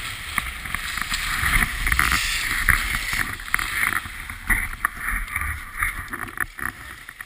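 Skis sliding and scraping over groomed snow, with wind on the body-worn camera's microphone and scattered knocks and clicks. It grows quieter in the last couple of seconds as the skier slows.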